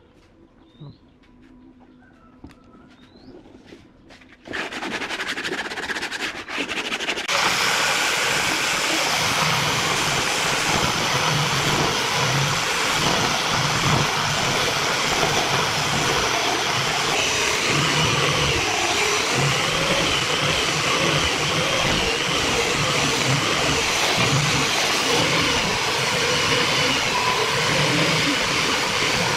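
Electric angle grinder with a sanding pad running and sanding a curved wood strip. It starts about four and a half seconds in, grows louder at about seven seconds, then runs steadily. Faint bird chirps come before it.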